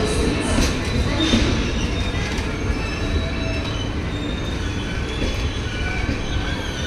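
Passenger train coaches rolling along the platform track: a steady rumble of wheels on rail, with a thin high wheel squeal over it.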